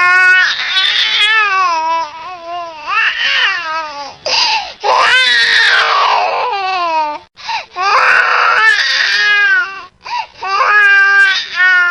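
Infant crying: a series of wavering, high-pitched wails, each one to three seconds long, with short catches of breath between them. The longest wail, about halfway through, falls in pitch at its end.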